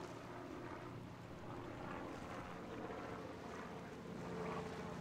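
Motorboat engine running steadily as a boat passes, a low drone over a hiss of water, getting a little louder near the end.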